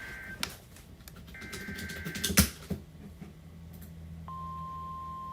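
Weather-radio emergency alert: a SAME digital header ends in two bursts of warbling two-tone data, with a sharp click just after the last burst. About four seconds in, the steady single-pitch warning alarm tone starts, announcing an incoming tornado warning.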